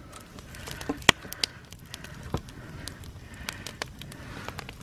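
Wood campfire crackling, with irregular sharp pops, the loudest about a second in.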